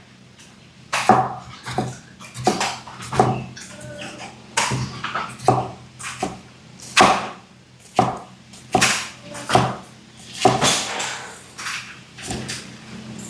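Kitchen knife cutting down onto a wooden cutting board, separate knocks about once a second at an uneven pace, over a faint steady low hum.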